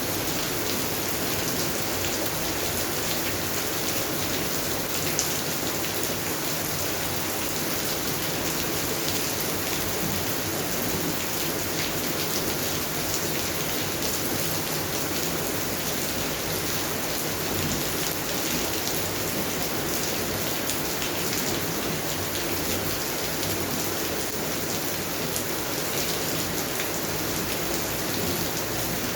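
Steady rain falling on garden plants and surfaces, a dense even patter of drops.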